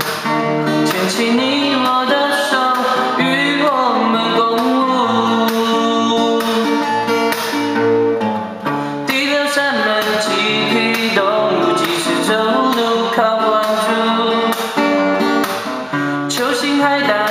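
Instrumental break of a pop song: guitar-led backing music over a steady drum beat.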